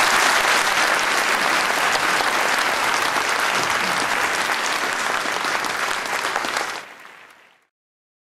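Audience applauding steadily, then fading out to silence about seven seconds in.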